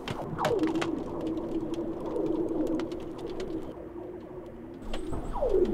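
Frozen lake ice singing: sharp ticking cracks and whistles that fall steeply in pitch as stress cracks run through the ice sheet, over a steady low drone. One falling whistle comes about half a second in and another near the end.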